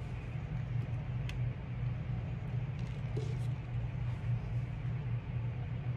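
Steady low hum of background noise through an open video-call microphone, with a few faint clicks.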